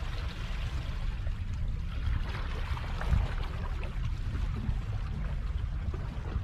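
Small waves lapping and washing against shoreline rocks, over a steady low rumble.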